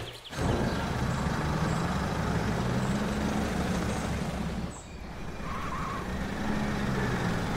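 Cartoon sound effect of truck engines running steadily as the trucks drive along, a low hum that dips briefly about five seconds in.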